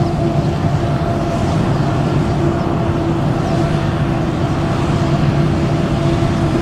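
Engines or motors running steadily: a constant, unchanging hum of several steady tones over a dense mechanical noise.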